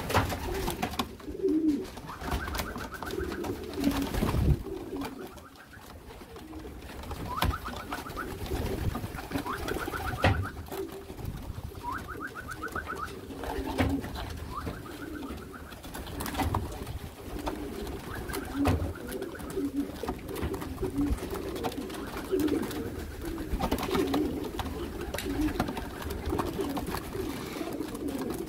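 Racing pigeons cooing continuously on a wooden loft landing board, with occasional sharp knocks and wing flaps as birds land and move about.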